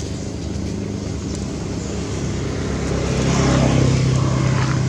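A motor vehicle driving past close by, its engine hum swelling to its loudest about three seconds in.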